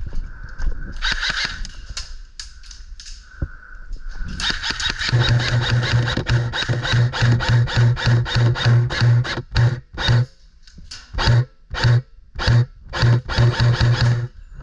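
Airsoft guns firing: a long stretch of rapid shots with a humming gearbox, then shorter bursts and single shots near the end.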